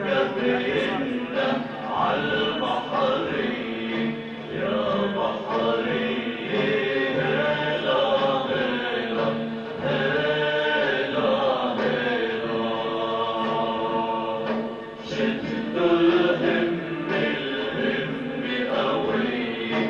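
Music with a group of voices singing together, unbroken throughout.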